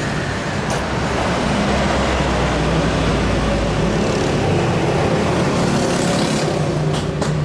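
Steady motor-vehicle noise, like road traffic running by, with a few short clicks near the end.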